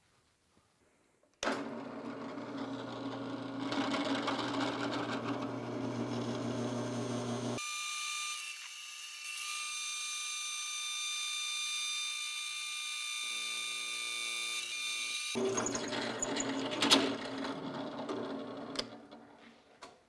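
Benchtop drill press running and drilling a 3/8-inch hole through a steel eye bolt blank, starting about a second and a half in and stopping near the end. For several seconds in the middle the sound turns higher and thinner before the lower hum comes back.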